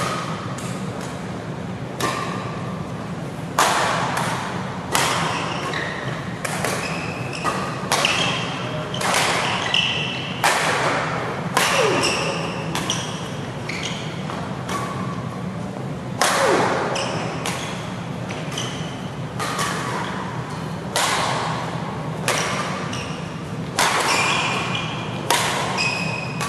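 Badminton racket strings striking a shuttlecock again and again at irregular intervals, with sneakers squeaking on the court mat. A steady low hum runs underneath.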